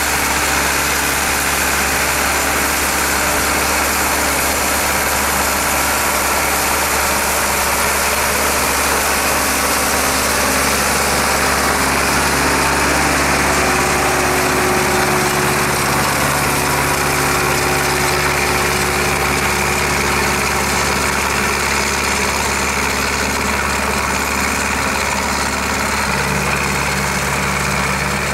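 Tractor diesel engine running steadily under load while pulling a plough, its note shifting near the end.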